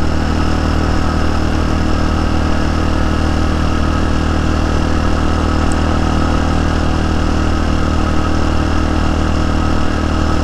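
TaoTao TBR7 motorcycle engine running at a steady, unchanging pitch while the bike cruises along a dirt road.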